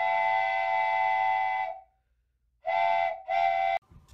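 Steam train whistle sound effect: one long blast of about two seconds, then two short toots.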